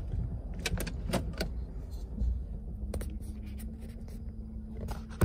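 2010 Lincoln Town Car's 4.6-litre V8 idling rough, heard from inside the cabin, with several sharp clicks and knocks as the gear selector is moved into gear. A steady hum sets in about two seconds in.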